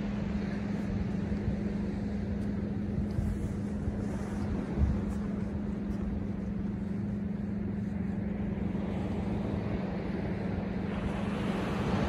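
Surf washing onto a sandy beach as a steady hiss, with a constant low hum underneath. A brief low thump comes just before five seconds in, and the wash swells about eleven seconds in.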